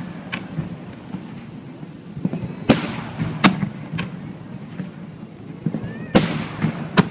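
Aerial firework shells bursting overhead: a run of sharp bangs, the loudest coming in two pairs a few seconds apart, each followed by a rolling echo.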